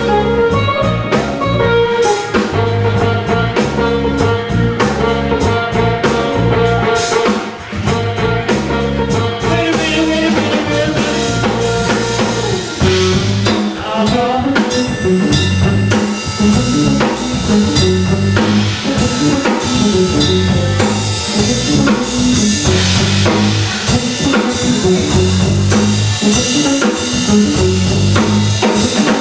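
A live band playing a song: drum kit keeping a steady beat under bass, guitar and keyboard.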